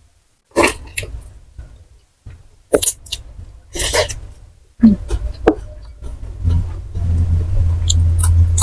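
Close-miked crunching and chewing of fried snacks (gorengan), in separate sharp crunches a second or so apart, with a low rumble building near the end.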